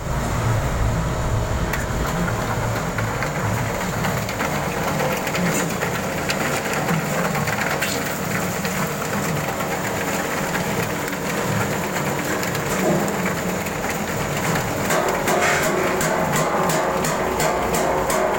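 Garlic and shallot peeling machine running: steady motor noise with rattling, which turns into dense rapid clicking about fifteen seconds in.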